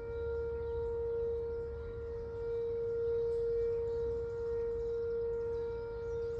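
Outdoor warning siren sounding a steady tone during a scheduled test. It holds one pitch with gentle swells in loudness.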